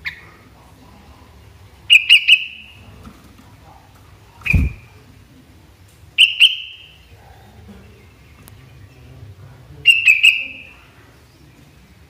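Sooty-headed bulbul (kutilang) calling in four short outbursts of quick, clear whistled notes, in groups of two or three, with one single note about halfway through that comes with a dull thump.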